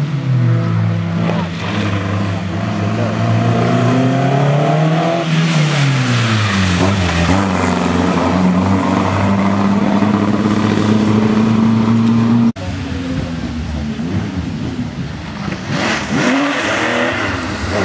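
Historic rally cars at full throttle: an Alpine A110's four-cylinder engine revving, its pitch rising and falling through gear changes as it pulls away, then, after an abrupt cut about two-thirds of the way in, a Porsche 911's flat-six approaching and revving up near the end.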